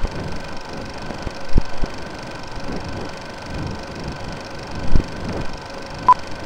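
Old-film countdown sound effect: a film projector running with crackle and irregular low pops, and a single short beep about six seconds in.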